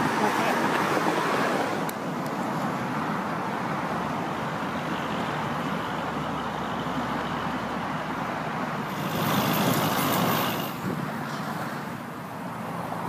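Road traffic noise, swelling as vehicles pass at the start and again about nine seconds in.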